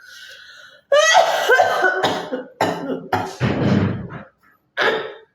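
A woman coughing forcefully about five times in a row, harsh and voiced, with throat clearing mixed in. The first cough, about a second in, is the loudest.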